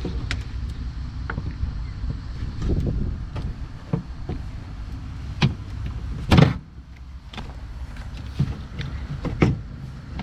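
Scattered clicks and knocks of hand tools and loose metal parts inside a car door as the rear door latch assembly is worked free, with one loud clunk about six seconds in. A steady low rumble runs underneath.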